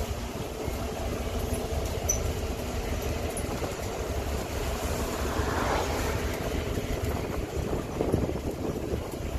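Moving bus: steady engine and road rumble heard from inside, with a brief louder rush about five to six seconds in.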